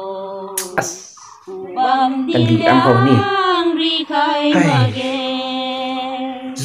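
Singing: a voice holding long, drawn-out notes that waver in pitch, briefly breaking off about a second in.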